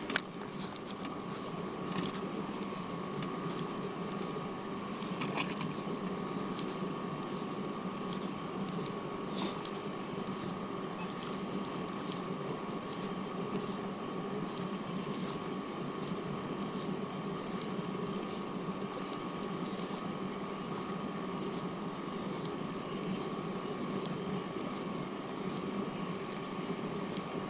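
A steady mechanical whirring hum with a constant high tone above it and a few faint ticks.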